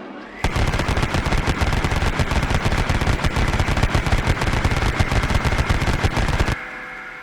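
Vulcan rotary machine gun firing one continuous burst of rapid shots lasting about six seconds, its spinning barrels whining before the first shot and after the last, the whine fading away at the end.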